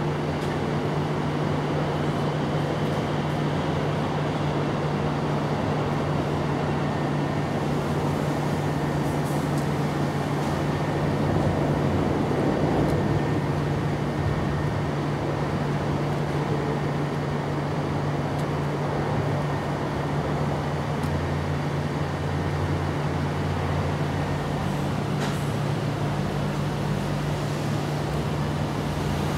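Steady low machine hum under a constant wash of noise, swelling slightly about twelve seconds in.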